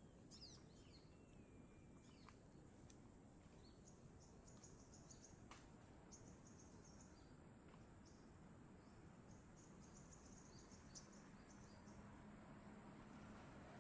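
Near silence with a faint, steady, high-pitched insect drone and scattered faint chirps.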